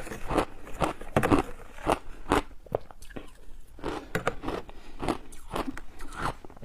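Crunchy shaved ice, coated in matcha and milk powder, being bitten and chewed: a run of crisp crunches, about two a second.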